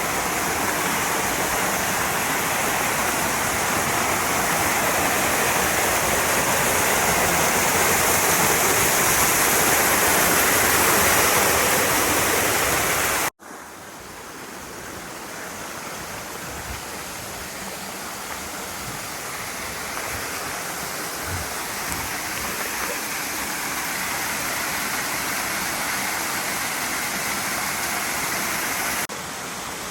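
Rushing water of a mountain stream, a steady loud roar of flowing water. About halfway through it cuts off abruptly and comes back quieter, then slowly grows louder again.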